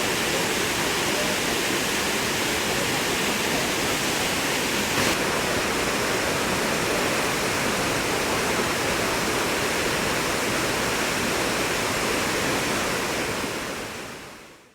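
Kegon Falls waterfall: a steady rush of falling water that fades out near the end.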